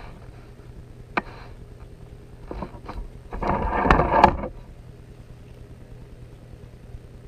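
Kangaroo-leather strands rustling and rubbing as they are plaited by hand and pulled tight, with a few small clicks; the loudest stretch, a scraping rustle of about a second, comes about three and a half seconds in.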